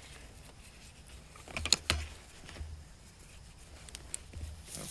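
Quiet rustling with a few light clicks: a short cluster of sharp clicks a little under two seconds in, and a single click about four seconds in.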